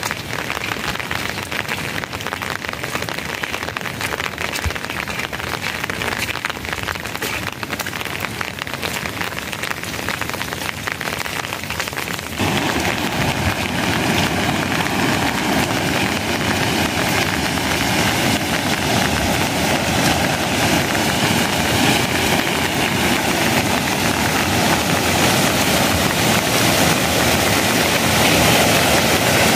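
Rain pattering steadily on a surface, with many fine drop clicks. About twelve seconds in, the sound steps up abruptly to a louder, steadier rushing noise.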